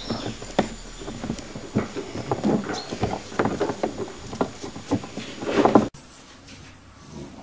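English bulldog puppies jostling together, with small grunts and squeaks amid irregular clicks and taps. The sound drops away to a quieter scuffle near the end.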